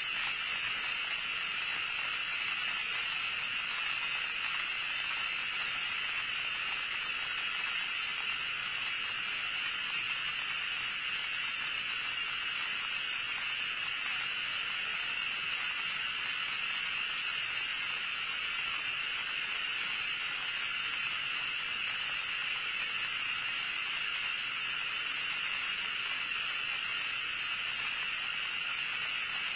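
Steady, even background hiss, strongest in a high band; no distinct events.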